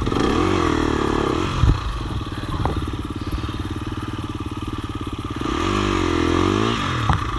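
Motorcycle engine revving up and down under the rider's throttle, with a knock about a second and a half in. It then runs steadily at low revs and revs again near the end.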